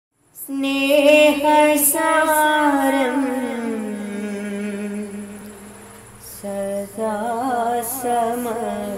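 A single voice singing the slow, wordless opening of a madh song, an Islamic devotional song praising the Prophet, in long held notes with ornamented wavering glides that sink slowly in pitch. A first long phrase gives way to a second one about six seconds in.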